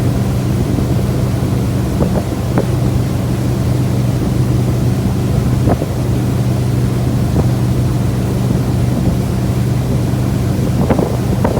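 Motorboat engine running at a steady speed, a constant-pitched hum, with water rushing along the hull and wind buffeting the microphone.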